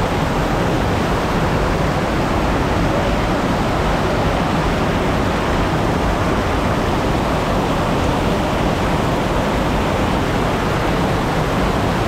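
Loud, steady rush of falling water from a waterfall, an even noise with no breaks or changes.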